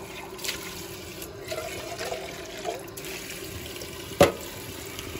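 Kitchen tap running, its stream splashing onto canned white hominy in a plastic colander in a stainless steel sink as the hominy is rinsed. A single sharp knock about four seconds in.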